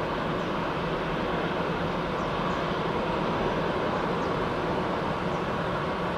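Jet noise from the four GEnx-2B turbofans of a UPS Boeing 747-8 freighter during its takeoff: a steady, even rush of noise that holds at one level.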